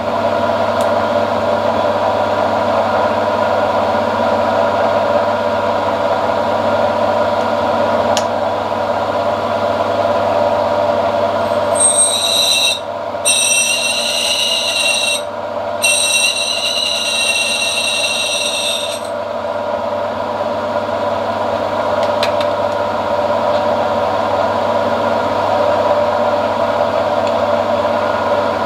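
Bench mill-drill running with a steady motor and gear hum. From about twelve seconds in, the drill bit cuts into the stainless steel disc with a high squeal, broken by two short pauses, for about seven seconds.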